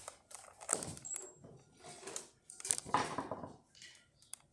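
Handling noises: a run of irregular rustles, knocks and light metallic clinks.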